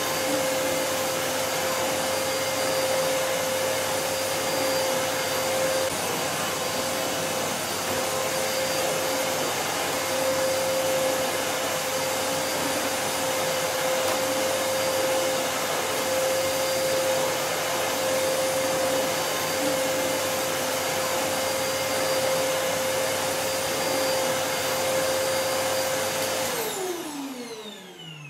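Vacuum cleaner running steadily: a loud rushing air noise with a steady whine. Near the end it is switched off, and the whine falls in pitch and fades as the motor spins down.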